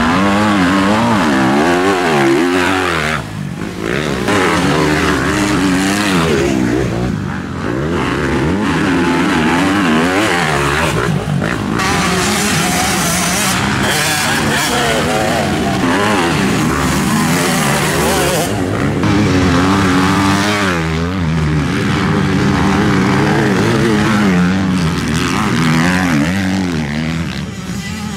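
Motocross bike engines revving hard, pitch climbing and dropping again and again as the riders accelerate, shift and back off on the dirt track.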